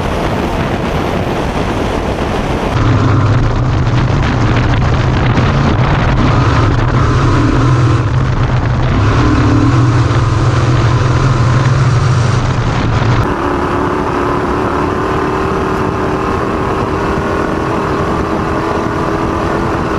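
Off-road race vehicle running at speed: continuous engine noise under a heavy rushing roar. From about 3 s to 13 s a strong, steady deep drone dominates; after that it gives way to higher, steady engine tones.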